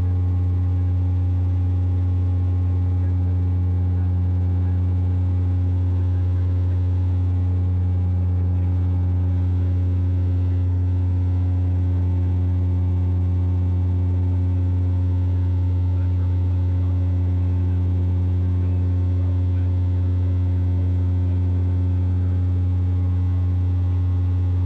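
De Havilland Canada Dash 8 Q400 turboprop in flight: a steady, deep propeller drone with a stack of overtones, holding an unchanging pitch and level.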